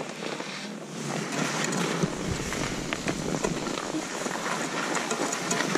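Skis hissing and scraping over snow during a downhill run, with scattered small clicks; a low rumble of wind on the microphone joins about two seconds in.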